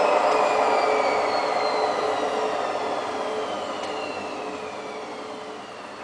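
Hoover Quattro Powerjet AE140 washing machine with broken drum bearings slowing down from its 1400 rpm fast spin. The drum noise and a high whine fall steadily in pitch and grow quieter as the drum runs down.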